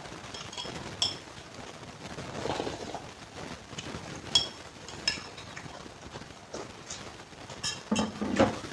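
Metal cutlery clinking against a bowl several times, each clink short and ringing. Between the clinks come chewing and slurping of instant noodles with raw bean sprouts; the loudest bout is near the end.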